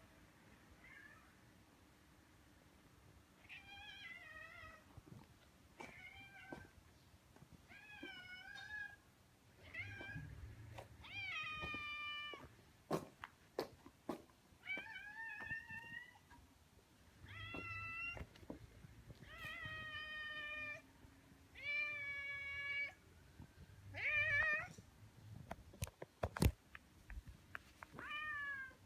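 A stray ginger tabby cat meowing again and again in greeting, about eleven meows spaced a couple of seconds apart, each call bending up and then down in pitch. A few sharp clicks fall between the calls.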